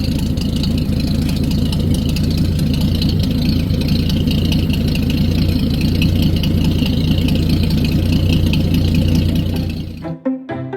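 Freshly overhauled Chrysler Crown M47-S straight-six flathead marine engine running steadily with an even low drone. It cuts off abruptly near the end as music begins.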